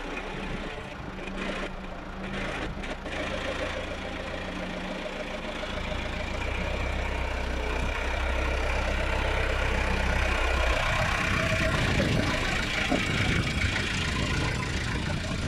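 Diesel engine of a farm loader running while it shuttles forwards and reverse stacking bales, its note changing about six seconds in and again near eleven seconds.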